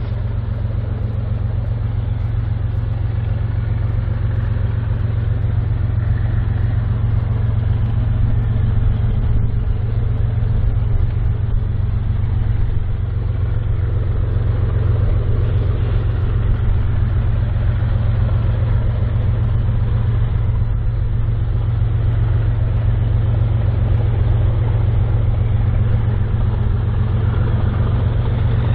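Diesel engines of two BNSF freight locomotives running steadily as an oil train approaches, a deep, even engine hum that grows slowly louder.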